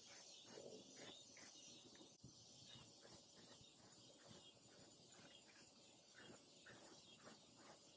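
Near silence outdoors, with faint insects chirping: a steady run of very high, short chirps repeating a few times a second.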